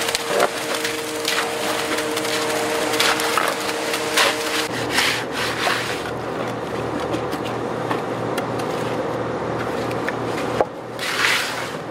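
Shovel and rake scraping and pushing wet concrete in a wooden form, in repeated short swishes, as concrete slides off a concrete truck's chute. The truck's engine runs steadily underneath.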